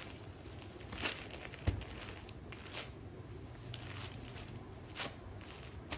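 Dola silk saree fabric rustling as it is handled and moved across a soft surface, in several brief swishes, with one soft thump just under two seconds in.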